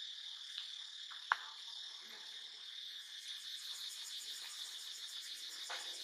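Steady, high-pitched chorus of insects trilling with a pulsing texture. A single sharp click stands out just over a second in, with a couple of fainter ticks around it.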